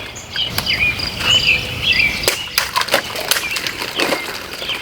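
Serrated folding knife slashing through plastic bottles in a quick series of sharp cuts and swishes, with birds chirping in the background.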